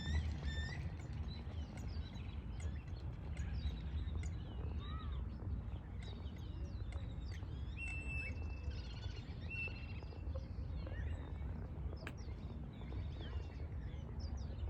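Birds chirping and whistling in a run of short, sliding calls, with a couple of longer level whistles midway, over a steady low rumble.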